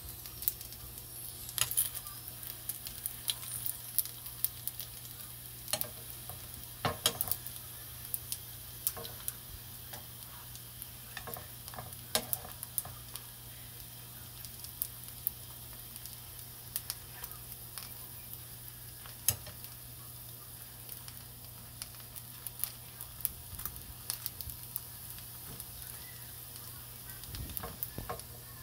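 Dumplings frying in oil in a nonstick pan, a steady sizzle, with scattered sharp clicks and taps of metal tongs against the pan and dumplings as they are turned.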